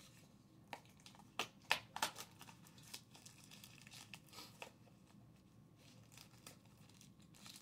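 Clear plastic shrink wrap crinkling and tearing as it is peeled off a cardboard trading-card box, in a dense run of sharp crackles over the first three seconds, then scattered ones.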